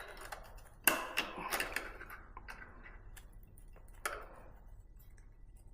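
Small metal clicks and scrapes of long-nose pliers working the brake-pad retaining pin in an e-bike's disc brake caliper: a sharp click about a second in, a quick run of lighter clicks after it, and another click near the end.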